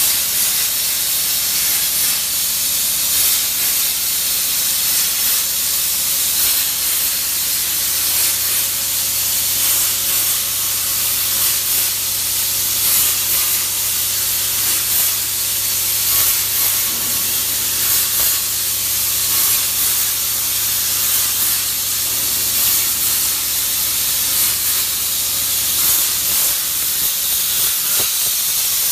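A 200 A CNC plasma cutter's torch cutting, a steady loud hiss with a low hum beneath.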